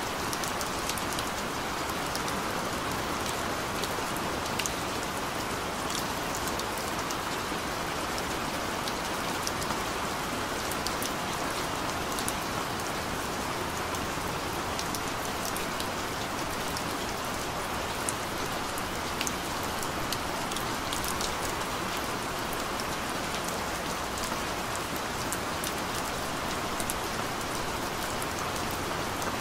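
Gentle, steady rain: an even hiss of falling rain with frequent sharp ticks of individual drops.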